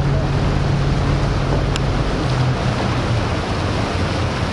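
Boat engine running with a steady low hum that shifts slightly about two seconds in, under wind noise on the microphone and the sound of water.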